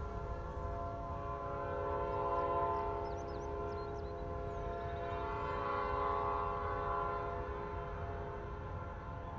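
Distant Norfolk Southern freight locomotive's air horn sounding a held chord that swells twice, over a low rumble.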